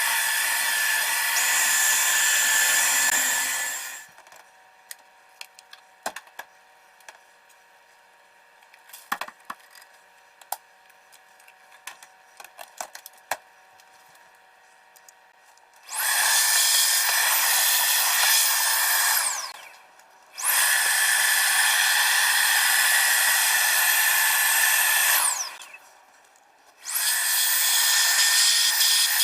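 Ryobi ONE+ 18V cordless stick vacuum's motor running with a high whine, switched off about four seconds in. Then comes a stretch of scattered clicks and knocks. After that it is switched on three times for a few seconds each, the whine falling in pitch as it winds down at each switch-off.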